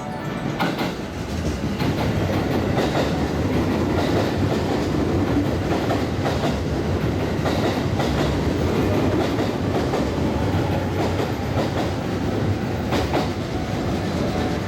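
A train running past, its wheels clattering over rail joints with a steady rumble that swells over the first couple of seconds.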